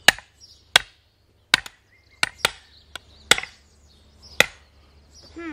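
A hammer striking the back of a metal splitting tool set into an upright log: about eight sharp blows at an uneven pace, driving the tool down to split the wood.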